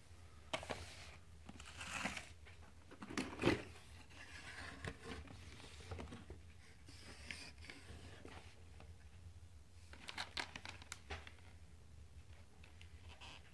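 Crinkling and rustling of a motherboard's anti-static bag and cardboard box packaging as they are handled, in irregular bursts, the loudest about three and a half seconds in and another cluster near ten seconds.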